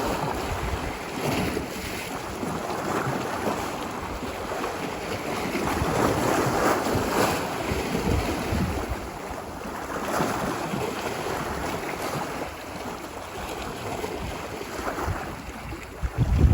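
Ocean surf washing ashore, a continuous wash of breaking waves swelling and easing every few seconds. Low gusts of wind buffet the microphone near the end.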